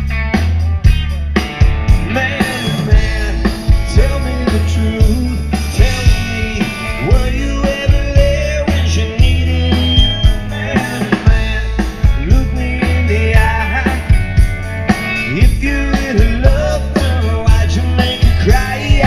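Rock band playing live: a steady drum-kit beat under bass and electric guitar, an instrumental stretch between sung lines.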